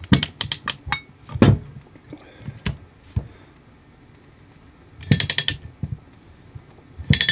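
Ratchet handle of a rivet nut tool clicking in short quick bursts as it is swung back and forth, drawing an M8 rivet nut tight into sheet metal. The bursts come near the start, about five seconds in and at the end, with a heavier knock about one and a half seconds in.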